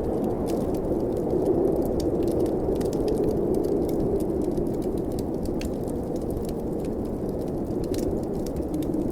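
Blizzard wind rushing steadily with a low howl, swelling slightly a couple of seconds in, over the scattered small pops and crackles of a fireplace fire.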